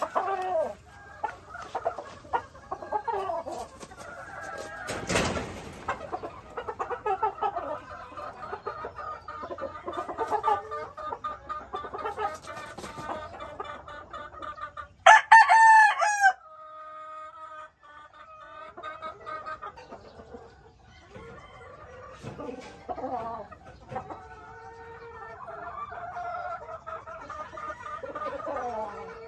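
Sweater gamefowl hens and rooster clucking and calling over and over, with one loud rooster crow lasting just over a second about halfway through.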